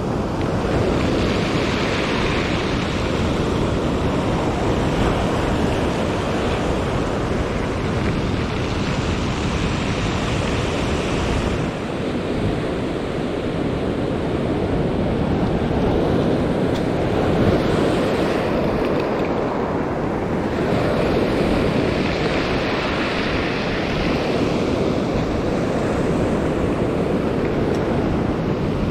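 Ocean surf breaking and washing up a pebble beach, swelling and ebbing every few seconds, with wind buffeting the microphone.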